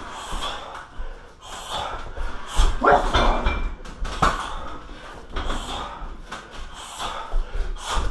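Repeated thuds of kicks and punches landing on a heavy bag, coming at irregular intervals, the hardest about three and four seconds in.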